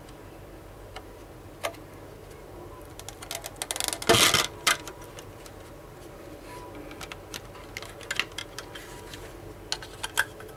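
Clear plastic clamshell tray around a 2.5-inch SSD being opened and handled: scattered clicks and crackles, with a louder burst of crinkling about four seconds in.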